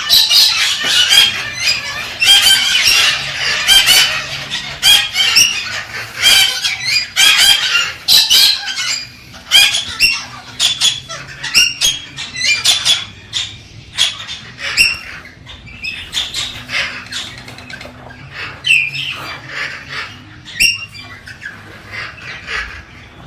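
Galah (rose-breasted cockatoo) calling: a rapid run of short chirps and screeches, dense for the first half and sparser toward the end.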